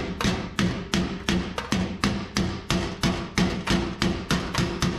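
Body hammer tapping a sheet-steel cab floor panel against a dolly held on the back side, in a quick even run of about three to four blows a second, each with a short metallic ring. The metalwork is straightening a bent spot in the floor panel.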